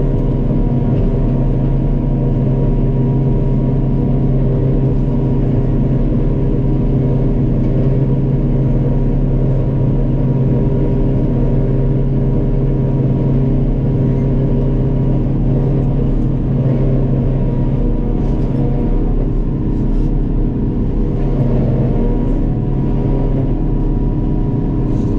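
A farm machine's diesel engine running steadily at working speed. Its note eases slightly about two-thirds of the way through.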